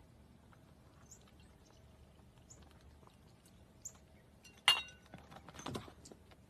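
Faint high chirps from small birds, then a sharp plastic clack as a cat flap swings shut behind a cat going back through it, followed by a softer rattle of the flap.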